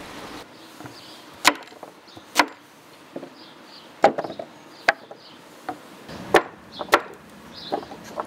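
Large cleaver-style kitchen knife cutting fresh carrots, knocking on wood: about six sharp knocks at an irregular pace, with lighter taps in between.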